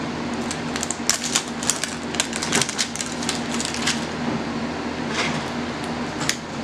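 Plastic wrapping crinkling and tearing as an L.O.L. Surprise ball is peeled open by hand: a quick run of crackles from about one to four seconds in, then a few scattered ones.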